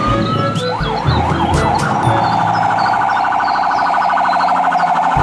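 Electronic fire-engine siren: a rising wail, then a few quick up-and-down yelps about a second in, switching to a rapid warble about two seconds in.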